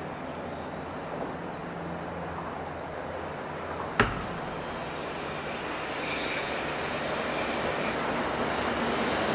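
EH500 electric locomotive hauling a freight train on approach, its running noise growing steadily louder, with a single sharp click about four seconds in.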